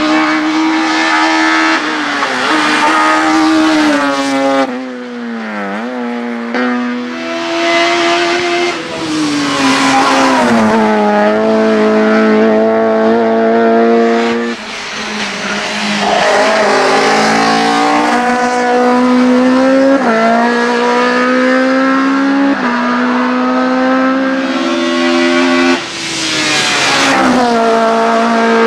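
Race car engine at full throttle, revving hard up through the gears, its pitch climbing and then dropping at each shift. The sound breaks off abruptly about 5, 15 and 26 seconds in and starts again as another climb.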